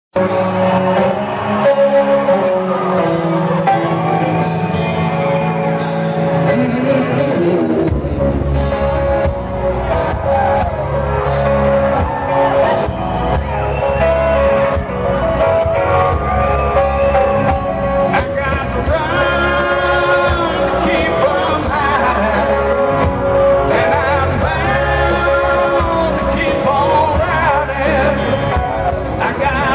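Live rock band playing in concert: a lead singer over electric and acoustic guitars, with the band's low end of bass and drums coming in about eight seconds in.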